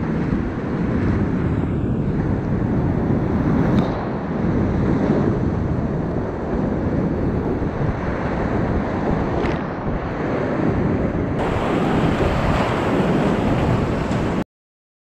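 Whitewater rapids rushing around a kayak running them, a steady, loud rush of water. The rush grows brighter about eleven seconds in and drops out abruptly near the end.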